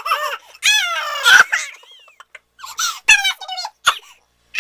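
Several short, high-pitched squeaky vocal calls with bending pitch, one longer call about a second in, separated by brief gaps.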